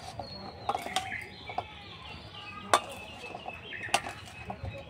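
Metal spatula (khunti) stirring fried goja sticks in a metal kadai, knocking and scraping against the pan with a few sharp clinks, the loudest nearly three seconds in; the jaggery coating is setting and drags on the spatula. Birds chirp in the background.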